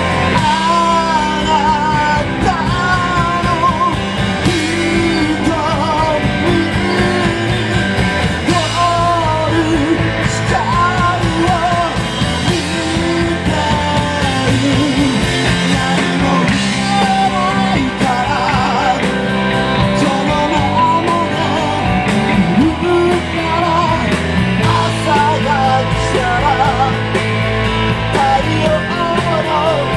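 Rock band playing loud on stage: drum kit, electric bass and guitar, with a voice singing over the band.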